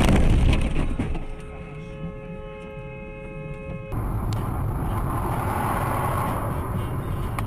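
Car collision caught on a dashcam: a loud crash as another car strikes the front of the recording car, dying away over about a second. A steady tone of several pitches is then held for about three seconds, and after an abrupt cut there is steady engine and road noise inside a moving car.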